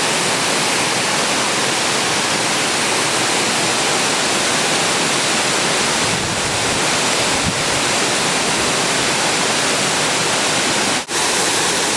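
Waterfall on a mountain creek: a loud, steady rush of falling water. The sound drops out for a moment near the end.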